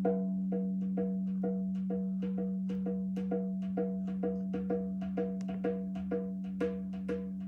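Djembe played with the hands in a steady pulse of roughly two strokes a second, over the steady low hum of a quartz crystal singing bowl that slowly fades.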